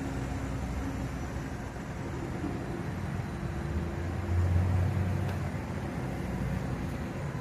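An engine runs steadily with a low rumble, growing louder for about a second midway.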